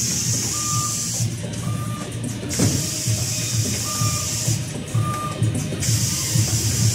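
Four-station rotary screen printing machine running through its repeating cycle: a hiss about two seconds long comes back roughly every three seconds, with short high tones in pairs between the hisses over a low, pulsing hum.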